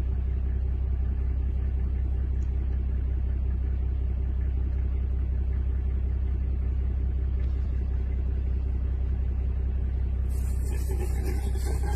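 Vehicle engine idling, a steady low rumble with a constant hum. About ten seconds in, a louder hiss joins it.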